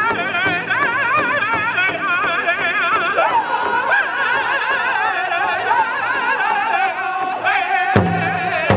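Powwow drum group singing a grass dance song in high, wavering voices. About three seconds in the voices slide down into a long held lower note, and near the end loud, heavy strikes on the big drum come in.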